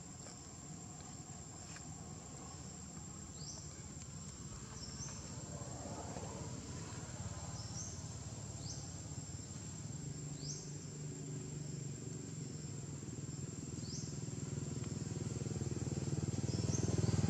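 Outdoor ambience: a steady high insect drone, with short rising chirps every second or two. A low motor rumble grows louder near the end.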